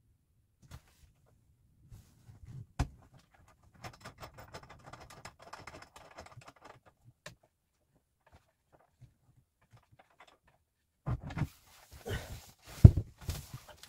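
Irregular work noises: scattered knocks and clicks, a stretch of light rustling about four to seven seconds in, then a quick run of heavier thumps and knocks near the end.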